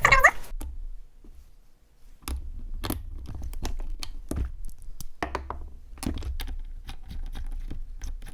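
Irregular small clicks and light knocks of metal carburetor parts being handled and pried apart during disassembly, over a low steady hum.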